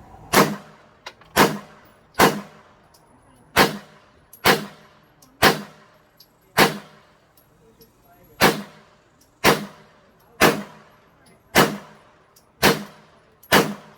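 A .40 S&W handgun firing a string of about thirteen shots, roughly one a second with a brief pause midway, each with a short echoing tail.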